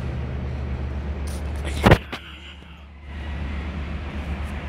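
Steady low rumble with a single sharp knock about two seconds in, after which the rumble briefly drops quieter.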